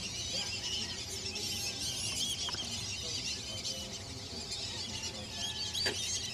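A dense chorus of many birds calling at once, a continuous high-pitched twittering and chattering, with one short click near the end.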